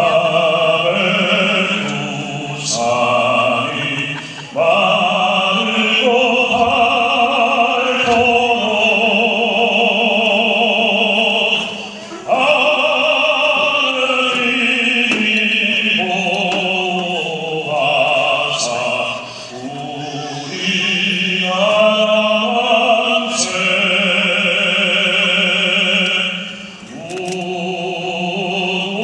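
A man singing solo in an operatic style through a microphone, with long held notes and wide vibrato. The phrases are separated by short breaks for breath.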